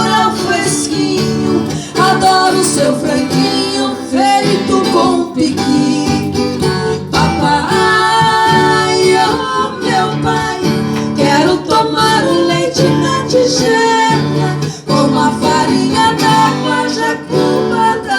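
A song with strummed acoustic guitar and singing.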